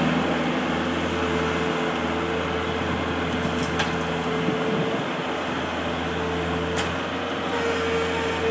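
Bobcat skid steer and dump truck engines running steadily on a dirt-loading job, with a low hum and a steady mid-pitched whine; two faint clicks come about four and seven seconds in.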